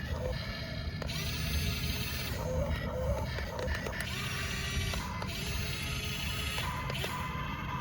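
Small electric motors and gearboxes of a 1:20 remote-control toy excavator whirring and ratcheting in stop-start spurts of about a second each.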